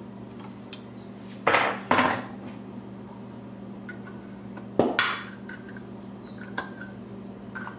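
Metal tools and small engine parts clinking and clanking against each other and the bench: a few sharp knocks about a second and a half in, twice around two seconds and five seconds, and lighter taps later, over a steady low hum.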